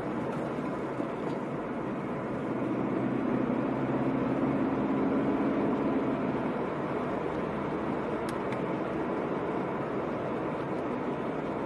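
A car being driven, heard from inside the cabin: steady engine and tyre road noise, swelling slightly around the middle.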